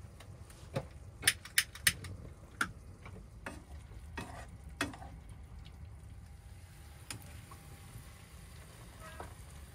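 A spoon stirring oyster mushrooms in a frying pan on a gas hob, knocking and scraping against the pan, with low, steady frying underneath. There are about half a dozen sharp clicks in the first five seconds, then only the faint frying.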